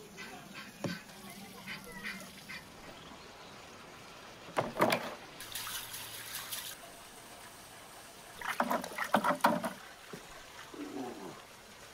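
A stream of dry salt pouring with a hiss into a plastic basin, between two short bursts of clattering and splashing.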